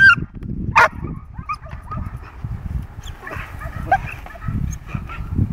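Belgian Malinois puppy barking sharply twice, right at the start and under a second in, then quieter whines and yips as it grips and tugs a bite rag.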